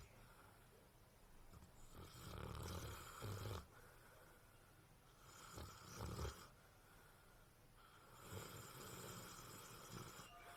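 A sleeping pet snoring faintly, three long, slow breaths about three seconds apart.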